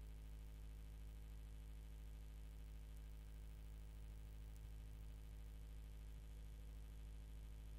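Faint, steady electrical hum with a ladder of overtones and nothing else: near silence.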